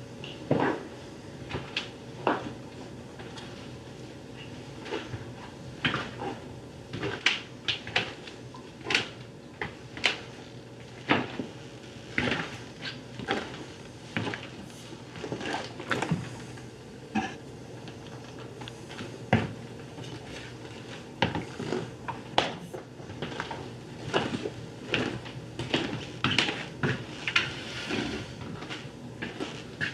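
Kitchen clatter: irregular knocks and clinks of dishes and cupboard doors being handled, about one or two a second, over a steady low hum.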